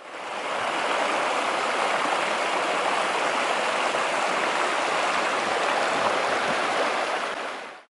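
Mountain creek rushing over rocks in a small cascade, a steady rush of water that fades in over about the first second and fades out near the end.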